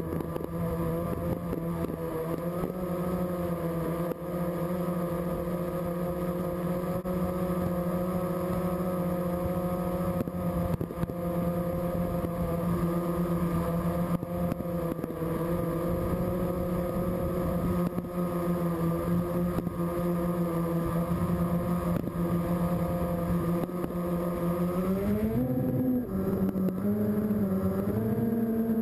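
Steady, loud hum of a small remote-controlled aircraft's motors. The pitch rises about 25 seconds in as the motors speed up.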